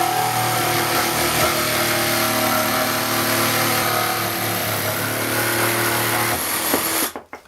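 Parkside PSTDA 20-Li A1 cordless jigsaw running on its lowest speed setting, sawing through wood with a steady motor whine. The motor winds down and stops near the end.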